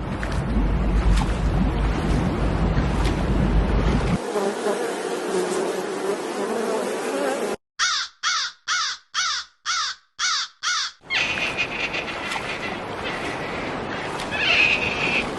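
Animal sounds in short spliced clips. The clearest is a run of about seven short calls, each rising and falling in pitch, about two a second, in the middle. Noisy stretches come before and after it.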